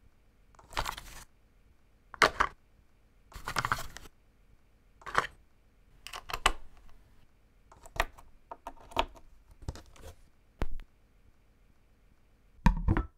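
Hands handling a prototype tonearm and a DJ controller: a string of short clicks, taps and rustles of plastic and metal parts, a second or two apart, with the loudest, a thump, near the end.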